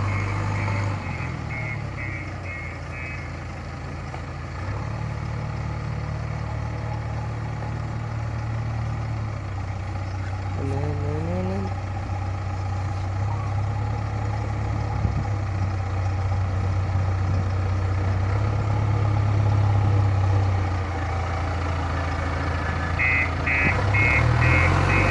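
JCB excavator's diesel engine running steadily, with a rapid high beeping reversing alarm for the first few seconds and again near the end. A short rising whine comes about ten seconds in.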